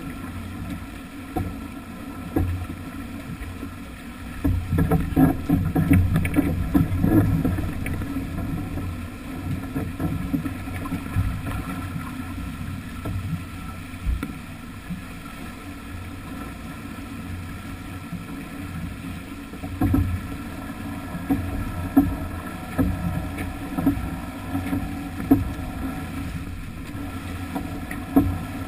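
Water rushing along the hull of a heeled sailing yacht under way, with wind buffeting the microphone in uneven gusts, strongest about five to seven seconds in.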